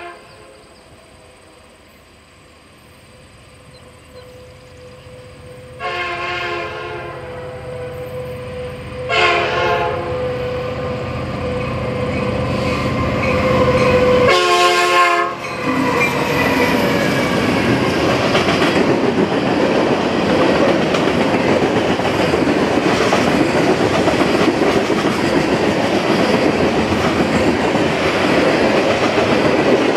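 Diesel freight train approaching and passing: a chord of air-horn tones sounds three times, a long blast about six seconds in, a short one near ten seconds and another around the middle, over a rising engine rumble. Then the locomotives go by and a string of tank cars rolls past with a steady loud rush of wheel noise on the rails.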